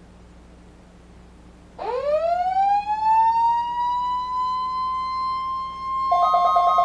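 A siren starts about two seconds in, its pitch sweeping quickly upward and then levelling off into a steady high tone. Near the end a second, rapidly pulsing alarm tone joins it.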